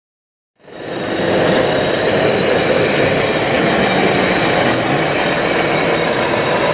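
Engine sounds from radio-controlled scale model trucks' sound modules, running steadily over a loud hall din. The sound fades in from silence about half a second in.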